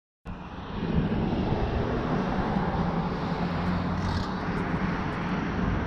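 A steady low rumble with a hum beneath a hiss of noise, fading in just after a moment of dead silence at the start, with a few faint clicks in the second half.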